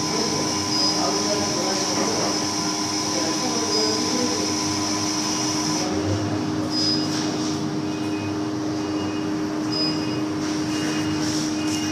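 Diesel engines of road-paving machinery, including a pneumatic-tyred road roller, running steadily: a constant drone with a steady hum.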